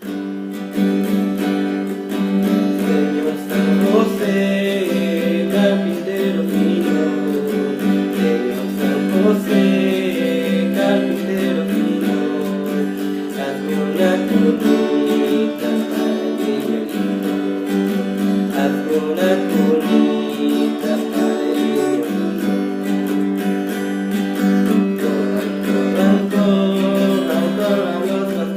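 Music led by a strummed acoustic guitar, playing steadily throughout.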